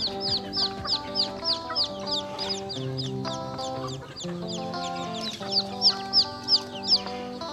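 Young chicks peeping: a run of high, short, downward-sliding peeps about three a second, thinning out in the middle and coming back louder near the end. Background music with held notes plays underneath.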